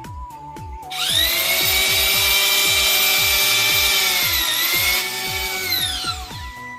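Electric drill motor of a converted well-drilling rig starting abruptly and running with a high, steady whine, dipping briefly in pitch, then winding down as it is switched off. Background music with a steady beat plays throughout.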